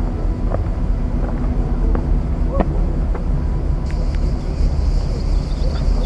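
Outdoor ambience: a steady low rumble, joined about four seconds in by a high, even buzz that holds on.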